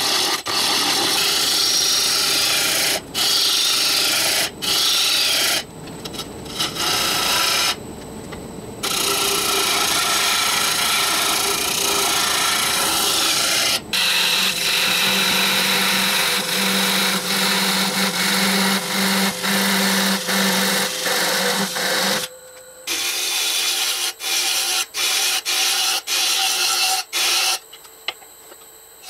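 Lathe gouge cutting a spinning Afghan pine blank on a Laguna Revo 18|36 wood lathe: a steady scraping hiss as shavings come off, broken off abruptly for a moment several times. A steady low hum runs under the cutting for several seconds midway.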